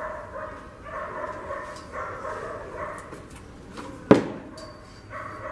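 A dog barking repeatedly in the background, with one sharp knock about four seconds in.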